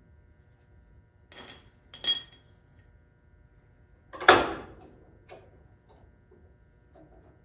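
Steel suspension parts and hand tools clinking and knocking during assembly: two short ringing clinks about a second and a half in, a louder knock around four seconds in, then a few light taps.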